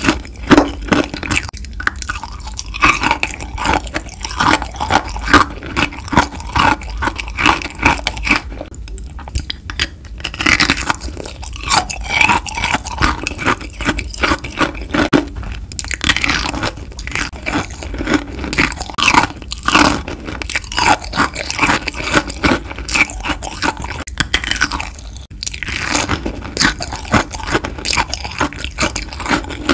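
Kohakutou crystal candy being bitten and chewed close to the microphone: a run of crisp crunches and crackles with wet chewing, pausing briefly now and then.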